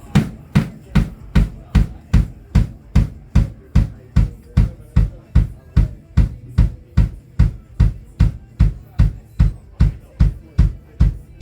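Kick drum struck on its own, one hit at a time at an even pace of about two and a half hits a second, deep thuds each with a short beater click: the drum being checked by itself during a band's sound check.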